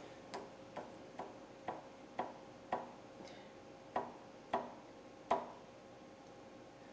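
Torque wrench on a milling-machine vise clicking faintly as the vise is tightened: about ten sharp single clicks, roughly two a second, with a brief pause partway and a stop about five seconds in.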